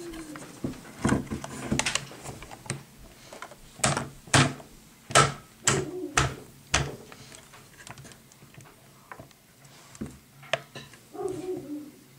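Irregular sharp knocks and clicks, about a dozen, of a WE Tech SCAR-L gas blowback airsoft rifle's parts being pushed and tapped hard back into place during reassembly.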